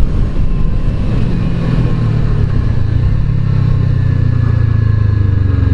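Kawasaki Ninja 650 parallel-twin engine running with a steady low drone.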